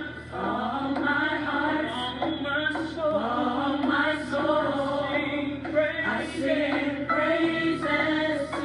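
A recorded gospel praise-and-worship song with choir singing, and a woman singing along with it.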